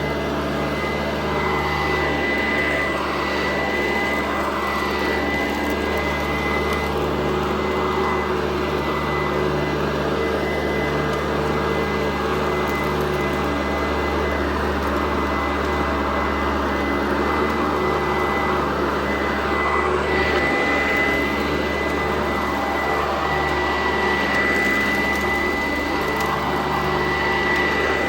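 Sanitaire SC899 upright vacuum cleaner running steadily, with a high whine held on one pitch over its motor drone.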